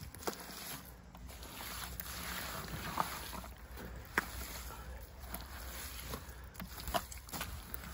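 Hands squelching and kneading wet clay mud mixed with straw in a wheelbarrow: uneven wet sloshing and squishing, with a few sharp wet smacks, the loudest about three and four seconds in and again near seven seconds.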